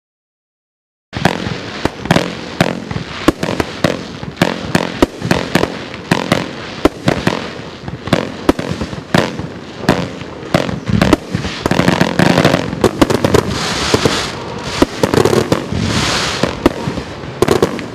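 Pyroland Pyro Angel 16-shot consumer fireworks cake firing, starting about a second in: a rapid run of sharp launch thumps and reports. The reports come thicker and run together in the second half.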